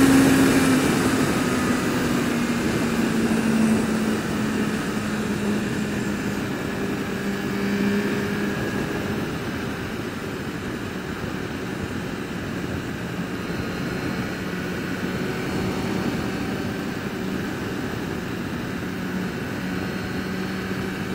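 Sport bike engine running while riding, with wind and road noise. Its note falls over the first few seconds, then holds steady at a cruise.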